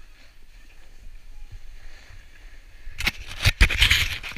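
A faint low rumble of wind on the microphone, then, about three seconds in, loud rough scraping with several sharp knocks right at the microphone.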